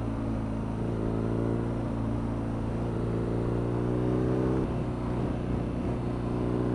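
BMW R nineT Scrambler's 1170 cc boxer twin engine running under way at a steady cruise. Its note creeps slowly upward, then drops a step about four and a half seconds in, over a steady rush of wind and road noise.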